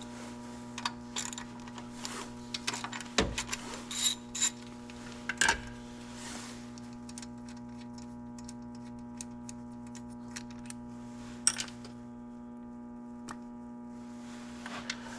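Scattered clicks, taps and light metallic clinks of hand tools and parts being handled during work on the car, busiest in the first few seconds and again near the end. A steady electrical hum runs underneath.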